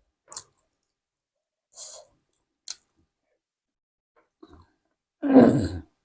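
Close-miked eating sounds: a few short, soft crunches and mouth clicks, then a louder burst of chewing about five seconds in.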